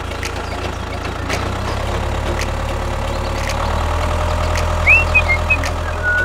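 Tractor engine running steadily with a rapid ticking beat, growing louder about a second in and again near four seconds. A few short high chirps come in near the end.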